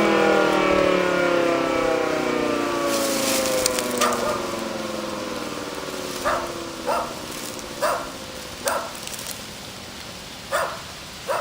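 Federal Signal Model 2T-120 two-tone siren winding down after shutoff, its pitch falling steadily as it fades. In the second half a dog barks about six times.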